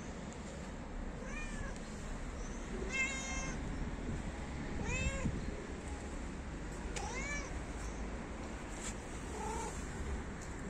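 A stray cat meowing about five times, short calls that rise and fall in pitch, spaced roughly two seconds apart; the middle ones are the loudest and the first and last are faint.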